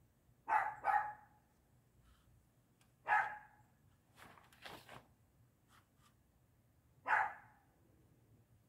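A dog barking: two quick barks, a third about three seconds in, and a fourth near the end, with some fainter rustling or knocking noises in between.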